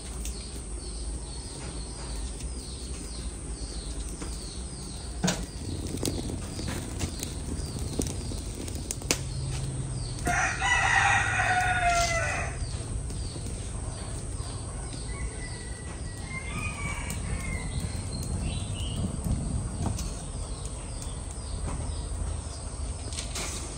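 A rooster crows once, about ten seconds in, a call of about two seconds that falls in pitch at the end. Under it runs a steady low background noise, with a faint high chirping repeated about three times a second through the first half.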